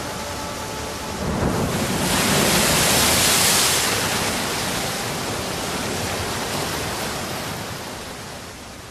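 A rushing noise, even and without any tone, swells up about a second in, is loudest a couple of seconds later, then slowly fades away.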